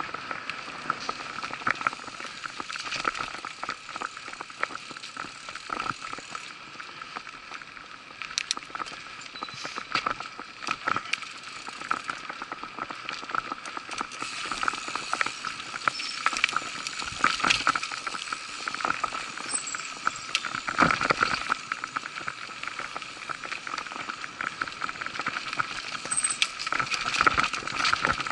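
Mountain bike riding fast along a dirt forest trail. The tyres run on the dirt, and the bike rattles and knocks over bumps and roots, with many short clicks and a denser patch of knocks about twenty seconds in.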